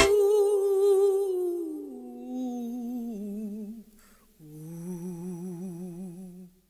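Closing vocal of a soundtrack song: a lone voice humming long, wavering notes that slide down in pitch. It breaks off briefly about four seconds in, then holds a lower note until it stops just before the end.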